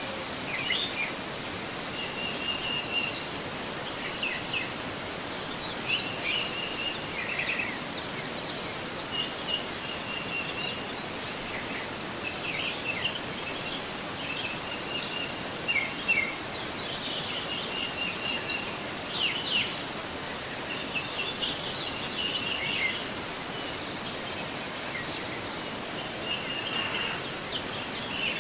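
Steady rush of a flowing forest river, with birds singing and chirping over it in short, frequent phrases.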